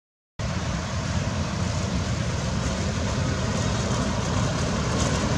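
Steady low rumble of outdoor background noise with an even hiss above it, after a brief dead-silent gap right at the start.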